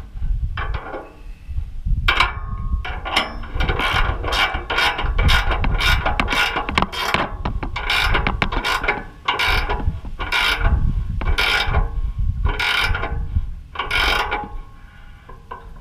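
Ratchet wrench being worked back and forth: repeated short runs of fast clicks, about one or two strokes a second, stopping about a second before the end.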